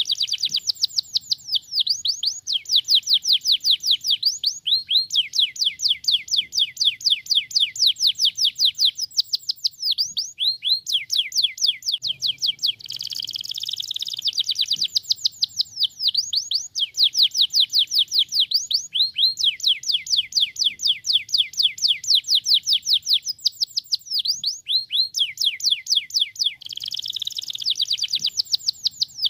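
Domestic canary singing: long runs of fast, evenly repeated sweeping notes, each run switching to a new note type, with a denser buzzing roll at the start, about halfway, and near the end.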